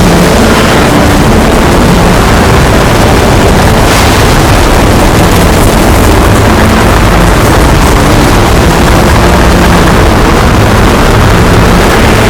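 Loud, continuous rumbling noise from an added sound-effect track, steady throughout, with a brief burst of hiss about four seconds in.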